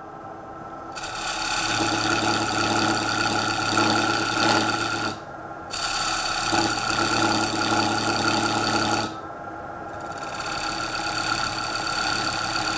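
Bowl gouge cutting into a spinning ash bowl blank on a Coronet Herald woodturning lathe: a steady hiss of the cut, broken off briefly about five seconds in and dipping again about nine seconds in as the tool comes off the wood.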